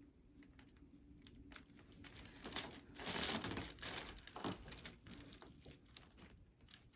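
Rustling and crinkling of the patient and the table covering as the chiropractor works on the patient's back, with a louder rush of noise about three seconds in and scattered faint clicks.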